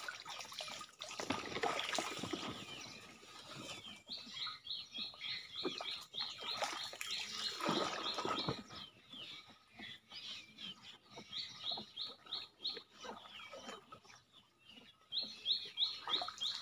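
Water sloshing and splashing as a bamboo pole pushes a banana-trunk raft through shallow floodwater, with a bird giving three runs of quick, evenly repeated high chirps, about four a second.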